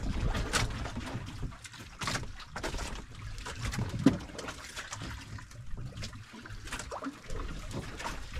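Sea water splashing and lapping against the hull of an outrigger boat, irregular and uneven, with one sharp louder knock about four seconds in.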